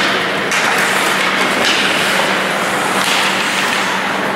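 Ice hockey play: skates carving and scraping across the ice, with a few louder scrapes, over a steady low arena hum.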